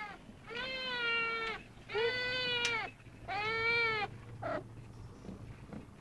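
A young snowshoe cat meowing three times in long, drawn-out calls, each rising then falling a little in pitch, then one short, fainter call. It is demanding attention, in a voice her owner likens to a baby alligator's.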